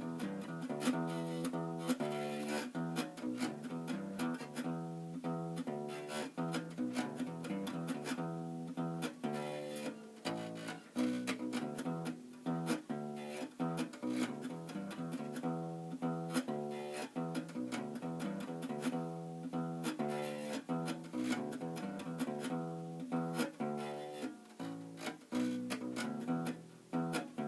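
Fender Kingman acoustic bass guitar, strung through a ToneBar bridge with no bridge pins, played unplugged: a steady run of plucked notes in a continuous bass line.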